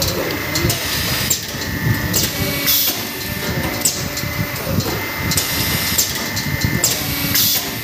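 Automatic hydraulic paper plate making machine running: a steady high whine and low clatter from the press, with short hisses of air about once a second as it cycles.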